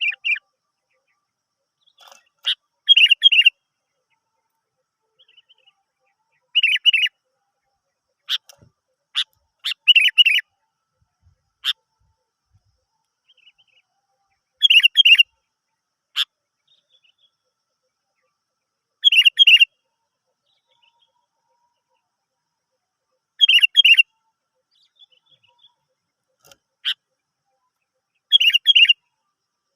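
Sooty-headed bulbul (kutilang) calling: a short chattering phrase about every four seconds, seven in all, with single sharp chirps in between.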